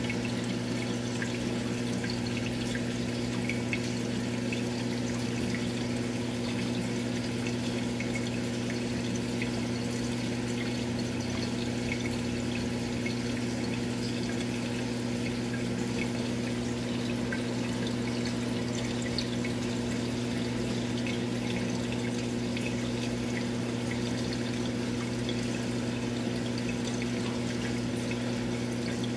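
Aquarium pump humming steadily, with water trickling and bubbling faintly over it.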